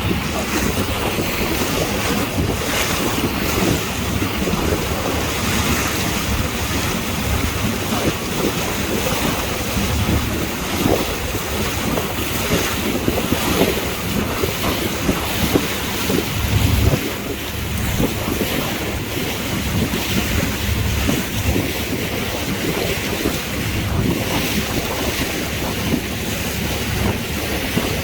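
Heavy wind buffeting the microphone over the continuous rush and splash of sea water, with gusty low rumbles.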